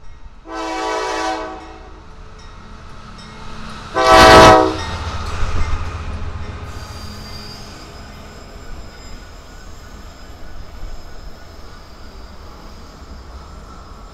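A freight locomotive's air horn sounds two chord blasts, the first about a second long and the second shorter and louder about four seconds in. The low rumble of the passing locomotives and rail cars follows, with a faint high wheel squeal from about seven seconds in.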